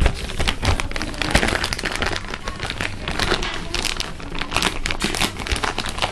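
Clear plastic packaging wrap crinkling and rustling as it is handled, a dense run of irregular crackles.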